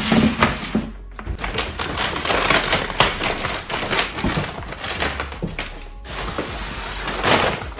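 Plastic pet-food storage bin and a large plastic kibble bag being handled: the lid clatters and knocks, the bag rustles and crinkles, and scissors cut the bag open near the end. Background music plays underneath.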